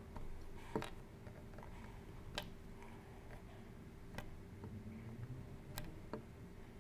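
Knife blade cutting slices off a bar of soap, each cut ending in a sharp click: five clicks, roughly one every second and a half, the last two close together. A faint steady hum runs underneath.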